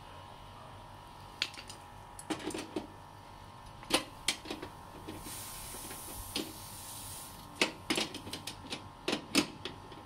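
Metal hand tools clicking and tapping against the brass service valves and flare nuts of a split air conditioner's outdoor unit: a dozen or so sharp taps in uneven clusters, with a hiss lasting about two seconds around the middle.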